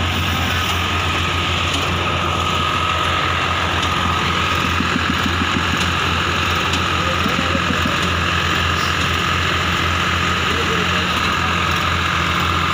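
Diesel engines of a Massey Ferguson 9500E and a Swaraj 855 tractor running steadily under load, pulling against each other on a taut chain in a tug-of-war, with a constant low hum.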